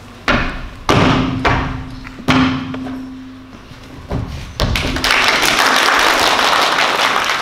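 A series of five heavy thumps, spaced about half a second to a second apart, over a faint steady hum. From about five seconds in, a steady rush of noise follows.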